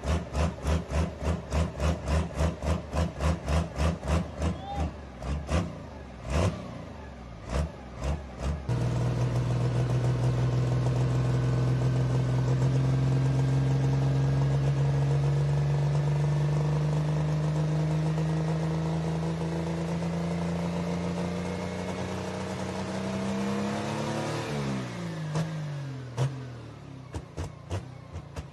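A cammed 12-valve Cummins diesel with a 107 mm turbo runs with a lumpy, pulsing idle at about four beats a second. About nine seconds in, the revs come up and are held. The pitch climbs slowly for some fifteen seconds, then drops quickly back to the pulsing idle near the end.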